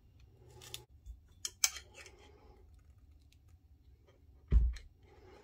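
Pointed metal tool scraping and clicking against the edge of a cured resin bowl and the Corelle glass bowl form it is stuck to, as the resin is pried free. A single louder low thump comes about four and a half seconds in.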